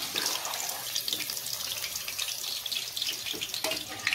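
Hot oil steadily sizzling and crackling in a kadhai as pieces of marinated chicken deep-fry, a dense run of fine pops over a hiss.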